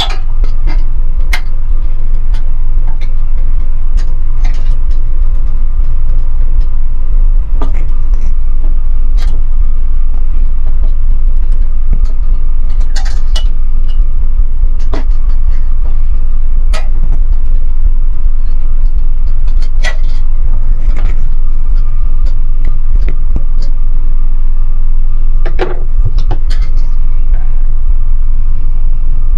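A loud, steady low hum or rumble runs throughout. Over it come scattered clicks and taps as gloved hands press wiring into the clips of a metal fluorescent light fixture.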